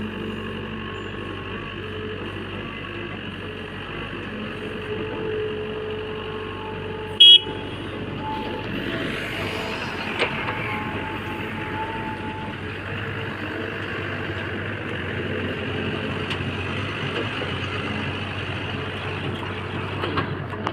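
JCB backhoe loader's diesel engine running steadily while working, with one short, loud high-pitched sound about seven seconds in.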